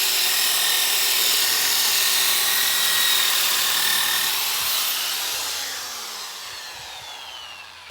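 Electric power tool spinning a 125 mm sanding disc with 220-grit paper against pallet wood: a steady whine over a hiss of abrasion. About four and a half seconds in the tool is switched off, and its whine falls in pitch and fades as it spins down.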